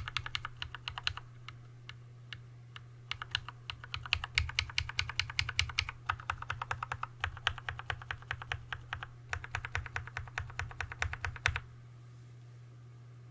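Typing on an Archon AK87 mechanical keyboard with Tealios V2 linear switches lubed with Christo 129 and Leopold keycaps: rapid keystrokes in several runs, with only a few scattered presses in a short gap near the start. The typing stops shortly before the end, leaving a faint steady hum.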